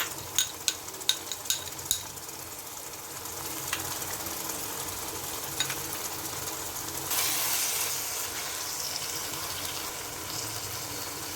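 Onion-tomato masala frying in a pan, a steady sizzle. It opens with a quick run of sharp clicks, about three a second, for the first two seconds, and the hiss swells louder for about a second around the middle.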